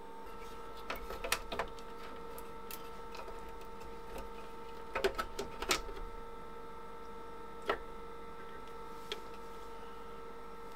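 Scattered light clicks and taps of small tools and parts being handled on a workbench, a few close together around the middle, over a faint steady hum made of several tones.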